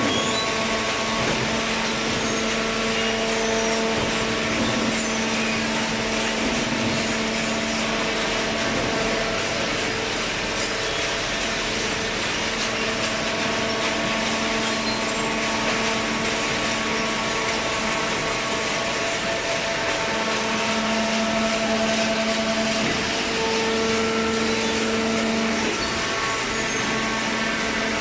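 Horizontal hydraulic cardboard baler and its feed conveyor running: a steady mechanical hum over a noisy rush, with a humming tone that gets stronger for a few seconds twice in the second half.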